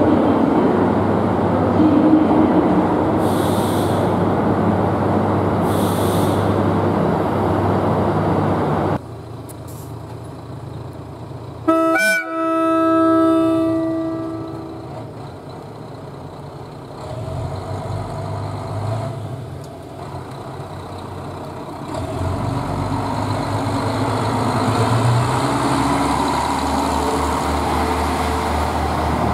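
Diesel railcar running as it rolls into a station. After a cut, a JR Hokkaido KiHa 54 diesel railcar gives one horn blast of about three seconds, then its diesel engine grows steadily louder as it draws up alongside the platform.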